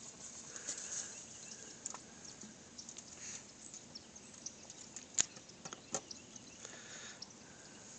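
Quiet outdoor background with scattered faint clicks and ticks, a sharper click about five seconds in and another about a second later.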